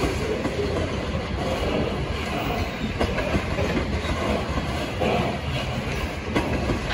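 Freight train of ethanol tank cars rolling past: a steady rumble of steel wheels on rail, with a few sharp clicks of the wheels.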